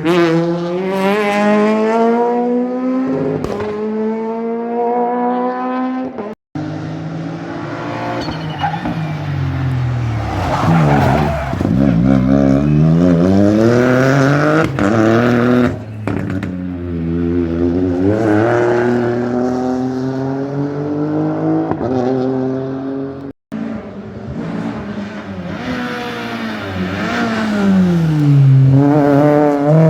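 Rally cars passing at full attack, engines revving hard up and down through the gears with sharp pitch drops as they go by. Three separate passes, split by two brief breaks.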